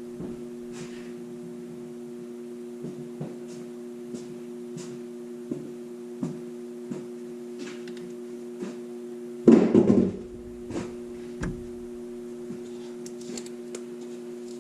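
Steady hum with scattered light knocks and clicks of handling, and one louder clatter about nine and a half seconds in.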